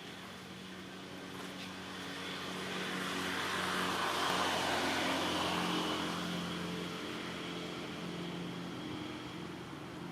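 A motor vehicle driving past: its noise grows louder to a peak about four to five seconds in, then fades away over a steady low engine hum.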